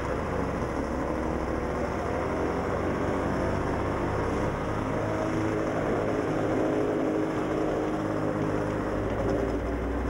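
A vehicle engine running steadily while driving, its pitch rising and falling slightly, over continuous road noise.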